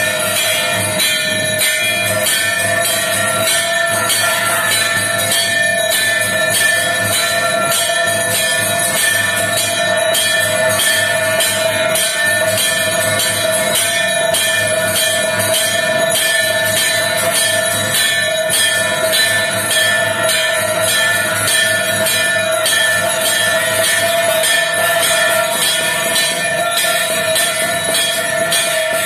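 Temple puja bells ringing rapidly and without pause, a dense metallic jangle over a steady sustained ring.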